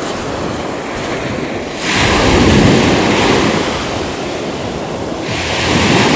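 Steady rush of wind and sea water at a boat, swelling louder about two seconds in and again near the end.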